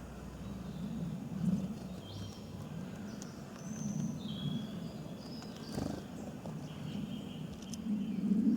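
Small birds chirping in short, high notes, several times, over a steady low rumble.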